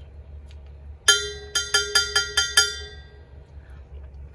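A metal spoon clinking against a cup while stirring coffee: about seven quick, ringing clinks over a second and a half.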